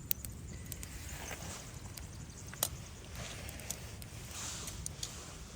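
Forks clicking and tapping on camp cookware: scattered light, sharp clicks, the strongest about two and a half seconds in, over a steady low background rumble.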